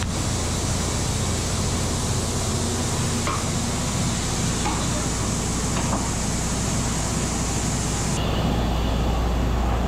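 Steady rushing noise with a low hum from the factory's wood-fired turbo stoves heating the big palkova pans. A few faint scrapes of a spatula or paddle on the metal pan come through the noise.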